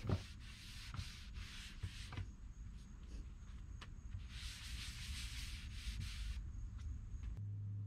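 Faint rubbing of a damp shop towel wiped across a wood-veneer tabletop to wet it, in two main spells of strokes over a low steady hum.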